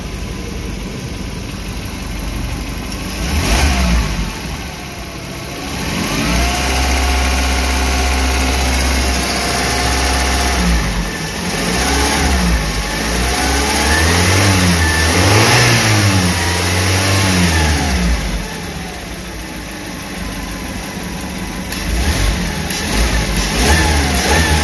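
Suzuki New Carry's rebuilt four-cylinder petrol engine revved repeatedly from idle: a rev a few seconds in, a held higher speed, then a run of quick blips rising and falling before dropping back to idle, and another rev near the end. It takes the throttle well but is not smooth at low revs, vibrating below about 1000 rpm, which the mechanic puts down to valves not seating properly in the overheat-warped cylinder head.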